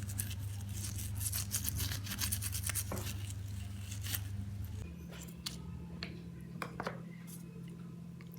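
Rapid scrubbing strokes as parts of an OS nitro model-aircraft engine are cleaned, easing after about five seconds into a few light clicks and taps, over a steady low hum.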